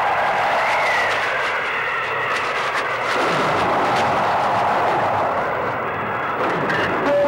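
Steady rushing wind sound effect, blowing continuously, with a faint high whistle about a second in.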